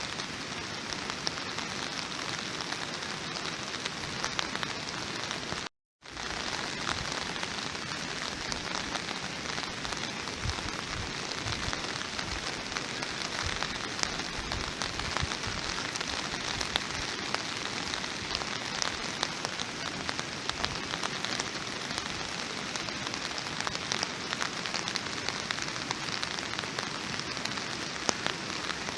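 Steady rain falling, an even patter with many individual drops ticking through it. The sound cuts out to silence for a moment about six seconds in, then returns.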